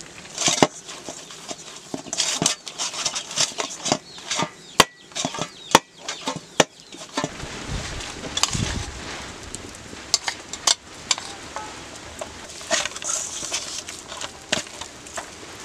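Hands mixing food in a metal bowl: quick clicks and knocks of fingers against the metal over the rustle of the mix, with a low thud about seven to eight seconds in.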